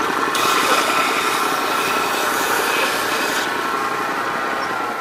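Belt sander running, with the end of a wooden dowel pressed against the moving sanding belt for about three seconds; this adds a harsh, hissing rasp as the end is squared off. Near the end the sander's sound eases off and drops in pitch as it winds down.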